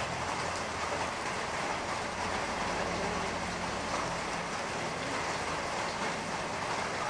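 Steady rumble and hiss of background noise, with a low engine-like hum that steps up in pitch a little after two seconds.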